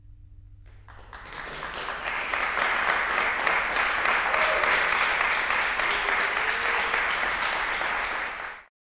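Audience applauding: the clapping breaks out about a second in, swells quickly into dense, steady applause, and cuts off abruptly near the end.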